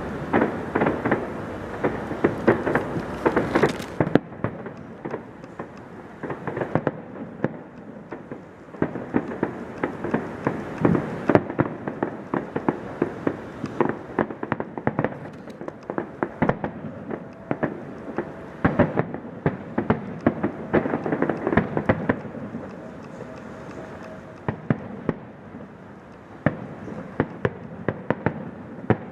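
Fireworks going off in rapid volleys: many sharp bangs and crackles one after another, with a continuous rumble of echoing booms beneath them.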